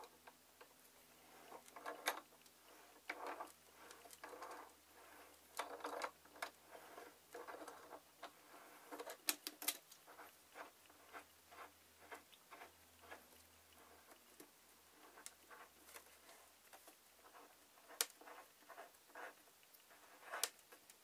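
Faint, irregular clicks, taps and scrapes of hands working the metal mounting parts of a dental X-ray head housing. Near the end a threaded collar is being unscrewed.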